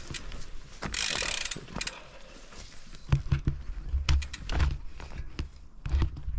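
Pole Stamina 180 full-suspension mountain bike's frame and rear suspension cracking and creaking as it is worked, a run of sharp clicks with low thumps. The owner is unsure whether the noise comes from the cracked, dented swingarm with its separated bonding or from worn, unserviced linkage bearings.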